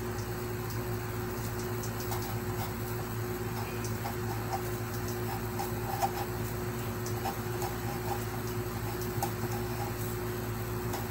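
Felt-tip marker scratching and tapping on paper in short strokes as numbers and signs are written, over a steady electrical hum.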